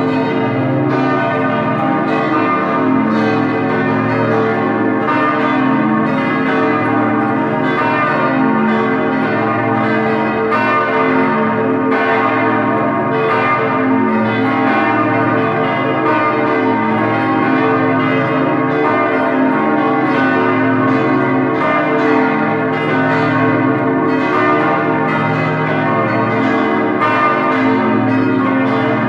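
Several church bells pealing together: overlapping strokes at many pitches, ringing on steadily.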